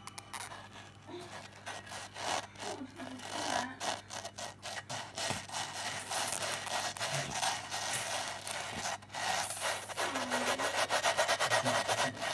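Inflated pufferfish out of water making a rapid, raspy grinding sound in quick pulses, growing louder in the last couple of seconds.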